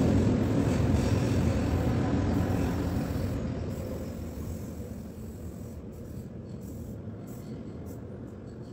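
Low rumble of a passing vehicle, fading steadily away over several seconds.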